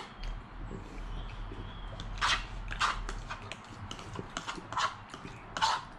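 A man eating noodles: a handful of short wet slurps and chewing sounds, with a sharp click at the start from the fork on the plate.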